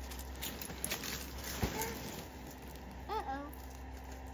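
Steady low hum of the blower fan that keeps the inflatable Halloween pumpkins up, with light rustling and tapping of their nylon as they are handled. A small child makes two short, soft vocal sounds about one and a half and three seconds in.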